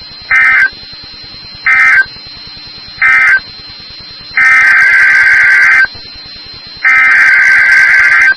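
Emergency Alert System SAME digital data bursts, buzzy warbling tones. First come three short end-of-message bursts about a second and a half apart, marking the end of the alert. About four seconds in, two longer header bursts follow, opening the next alert. Between the bursts there is a low steady hiss with a faint high whine.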